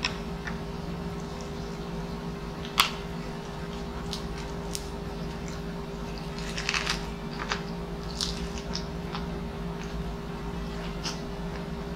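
Close-up mouth sounds of a lettuce wrap with grilled beef being bitten and chewed, with scattered crisp clicks and crackles, a cluster of them about halfway through. A single sharp click about three seconds in, over a steady low hum.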